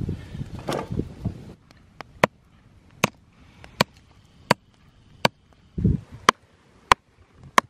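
A steady run of sharp, dry clicks or knocks, about one every three-quarters of a second, after a second and a half of rough low noise that stops abruptly.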